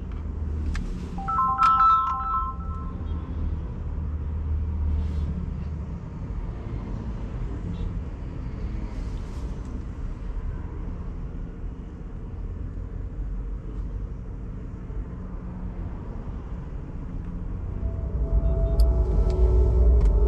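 Steady low road and tyre rumble inside the cabin of a Mahindra BE.6 electric SUV on the move. A short chime of a few steady tones sounds about two seconds in, and music from the car's audio system comes back in near the end.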